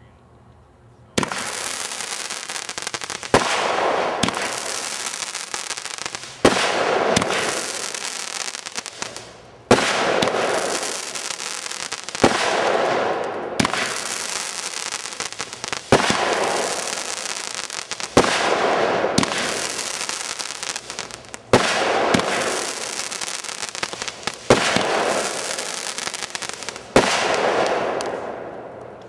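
A Splendid Sky consumer fireworks cake firing shot after shot, about one every two to three seconds. Each shot is a sharp crack followed by about two seconds of crackling hiss that fades.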